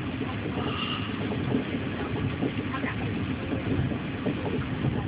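Steady low rumble inside the carriage of a Chinese D-series high-speed electric train running along the track.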